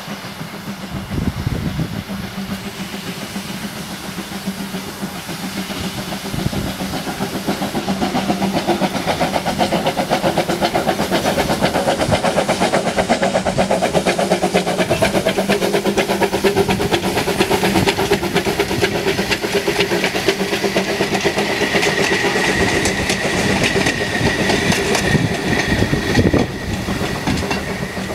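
Narrow-gauge steam locomotive Baldwin 778 hauling a passenger train past, its exhaust and the coaches' wheels making a dense rapid clatter on the rails. The clatter grows louder over the first several seconds as the train approaches. A thin, steady high squeal runs for several seconds near the end.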